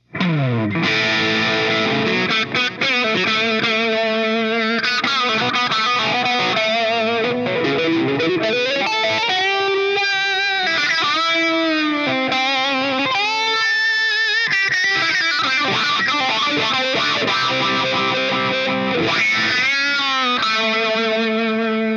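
Distorted electric guitar played through a touchpad-controlled wah with delay (GTC REVPAD touch-wah preset), from a Relish Phantom Jane guitar. The notes waver and bend in the middle of the passage.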